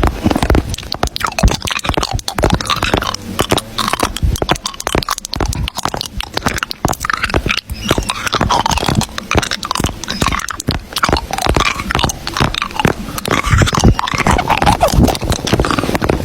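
Close-miked ASMR crunching and crackling: a dense, irregular run of clicks with a few short squeaky pitch glides.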